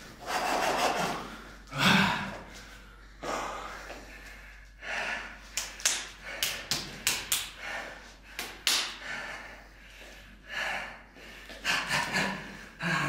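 A man's forceful breathing during fast punching drills: irregular hissing exhalations, with a quick run of short, sharp breaths in the middle.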